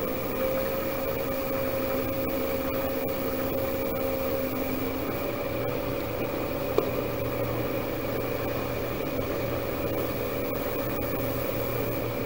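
Small metal lathe running with a steady motor hum and whine, spinning a pool cue shaft while 320-grit sandpaper is held against its leather tip. The whine shifts slightly about five seconds in, and there is a single sharp click about seven seconds in.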